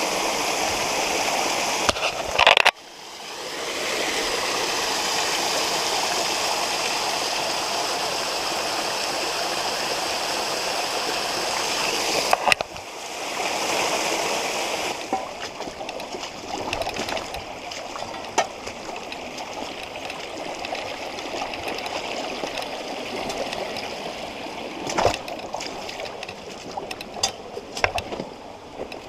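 Creek water rushing steadily over rocks, cutting off abruptly about 3 seconds in and again near 12 seconds. After about 15 seconds the water is fainter, with scattered clicks and knocks over it.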